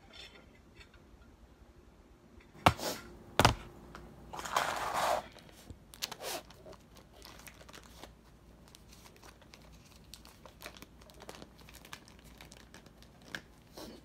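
Cardboard box of cornstarch being handled and tipped: two sharp knocks a few seconds in, a crinkling rustle of about a second, then a long string of small crackles and clicks as the box is worked and powder shaken out.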